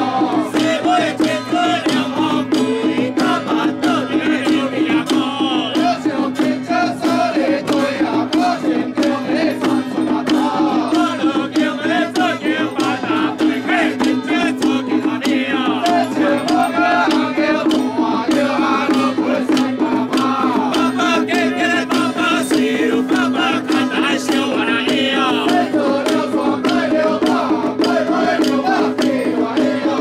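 Traditional temple ritual music: a wavering melody over a steady held drone, with rapid percussion strokes that keep on without a break.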